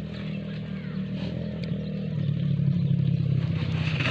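An engine running steadily, getting louder about halfway through.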